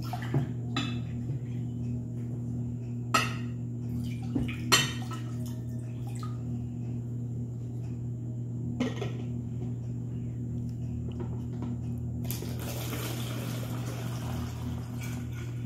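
Light clinks and knocks of a glass pitcher, cup and plastic bottle being handled on a table, then water poured from the pitcher through a plastic funnel into a plastic bottle for about three seconds near the end. A steady low hum runs underneath.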